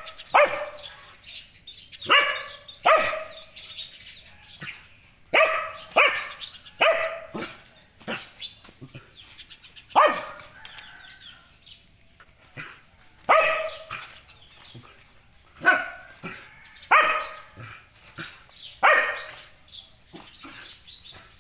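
Dog barking in sharp single barks, about one every second or two with a longer pause around the middle, as it confronts a snake on the ground.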